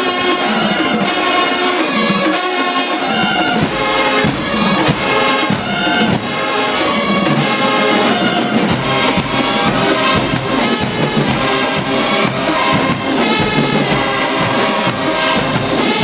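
HBCU show-style marching band's brass section playing loudly, trumpets and trombones carrying the tune without a break.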